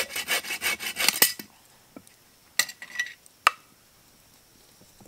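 A spoon stirring quickly in a cup, scraping the sides about seven times a second for a second and a half, mixing maple cream into coffee; then three light clinks.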